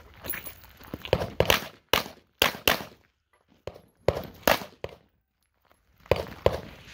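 Pistol fired in rapid strings of shots, mostly close pairs and quick runs, with two short pauses of about a second between strings, about three and five seconds in.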